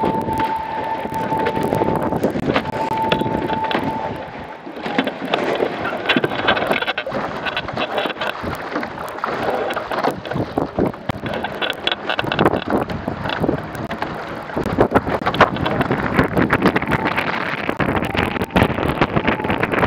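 Wind buffeting the microphone and water rushing and splashing along the hull of an A-class catamaran sailing at speed, with many sharp slaps and spray hits. A steady high whistle sounds through the first four seconds, with a short break, and returns faintly near the end.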